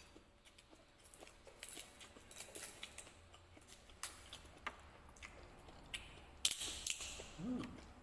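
Small clicks and scrapes of fingers gripping and twisting the cap of a glass bottle that will not come open, with a louder scrape about six and a half seconds in and a short grunt-like hum near the end.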